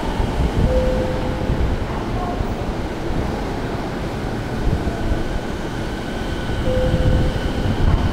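Toei 10-300 series electric train running in along the platform and slowing to a stop, with a steady rumble of wheels on rail. A faint steady high whine comes in about halfway through as it slows.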